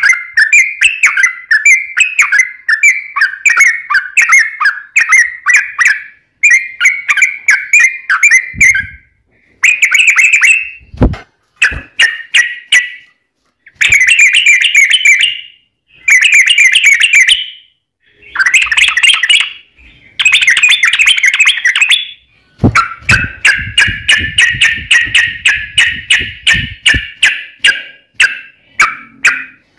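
Yellow-vented bulbul singing in fast, chattering runs of repeated bubbly notes. It sings in several bursts a few seconds long, with short pauses between them, and the last burst is the longest.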